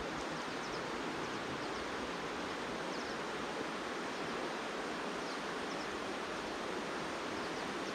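Steady outdoor rushing hiss, with faint, short high chirps scattered through it.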